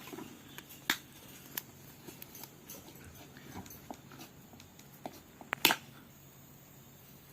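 Cockatiel making scattered small clicks and taps, with a brief, louder sharp sound about five and a half seconds in and another near one second in.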